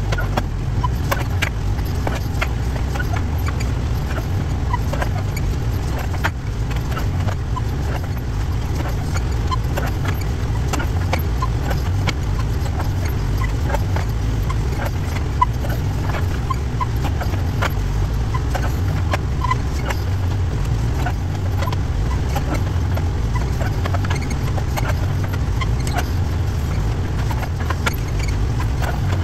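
Backhoe loader's engine running steadily while the boom and bucket dig, with frequent clanks and knocks from the bucket, linkage and digging throughout.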